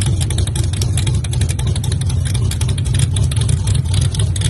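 Two drag-race cars' engines idling loudly side by side at the starting line: a deep, steady rumble with rapid, uneven exhaust pulses.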